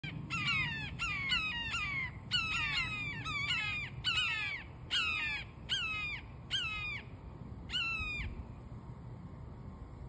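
Recently fledged red-shouldered hawks calling: a fast run of repeated shrill calls, each sliding down in pitch. The calls come about twice a second at first, then space out and stop a little after eight seconds in.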